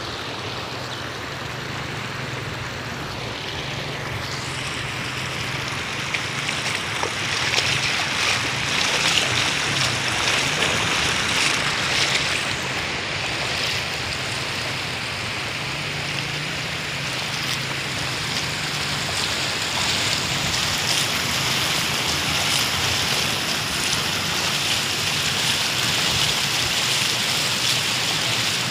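Fast-flowing floodwater rushing and splashing in a steady wash, growing louder about seven seconds in.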